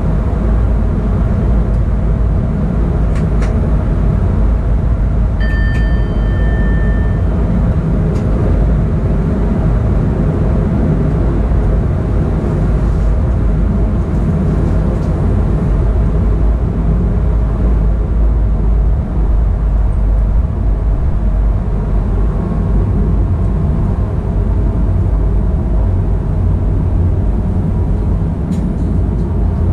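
SNCB AM08 Desiro ML electric multiple unit running at speed: a steady deep rumble of wheels on rail and rushing air. A brief high beep sounds about five seconds in.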